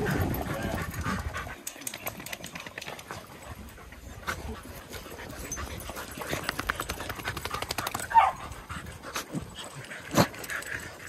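Dogs panting while a puppy digs in dry dirt, its front paws scraping in quick strokes for a couple of seconds past the middle. A dog gives one short high yip about eight seconds in, and there is a sharp click near the end.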